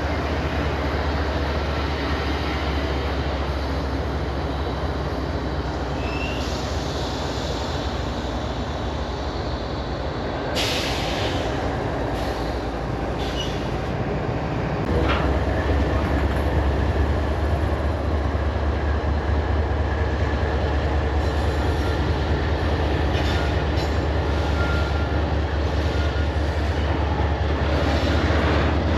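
CSX freight train in a rail yard: a diesel locomotive running with a steady low drone that gets louder about halfway through, as cars are moved. A brief sharp noise comes about a third of the way in, and there are a few faint high squeals.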